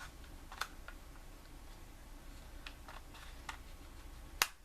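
Faint plastic clicks and handling noises from a Batarang replica being worked by hand, with one sharp click near the end.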